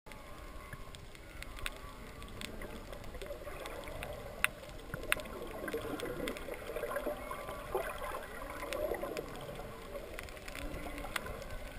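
Humpback whale song heard underwater: long calls gliding up and down in pitch, strongest in the middle of the stretch, over scattered sharp clicks and crackle from the reef.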